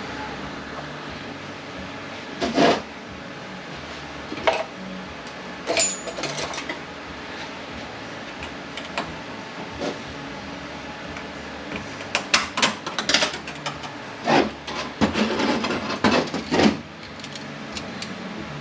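Metal transmission parts clinking and knocking as they are handled and set down during teardown inspection. The knocks are scattered at first, then come in a busier run of clinks toward the end.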